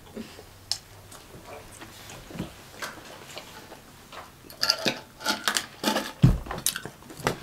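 Close-miked eating sounds of fried chicken: a few scattered mouth and hand clicks, then a dense run of chewing and lip-smacking clicks from about four and a half seconds in, with two dull thumps near the end.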